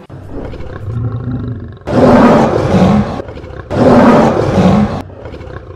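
A lion roaring twice as a sound effect, each roar loud and a little over a second long, after a lower rumbling growl at the start.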